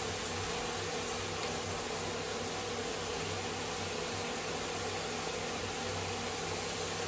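Steady electric hum with an even hiss, from a running kitchen appliance's motor or fan.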